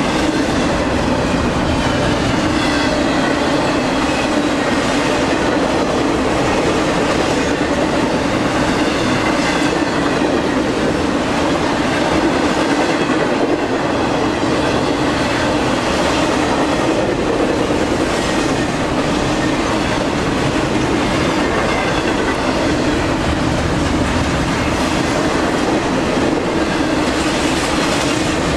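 Intermodal freight train rolling past close by: a steady noise of steel wheels on the rails under double-stack container cars and trailer flatcars, with a faint, wavering high squeal from the wheels.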